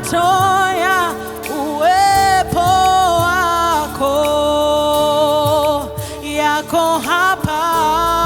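Swahili gospel worship song: sung notes held with vibrato and sliding between pitches, over a steady instrumental backing with a low bass.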